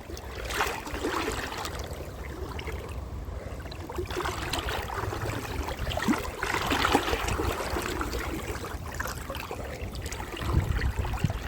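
Shallow river water running and splashing around legs in waders, with uneven surges as someone wades upstream through it.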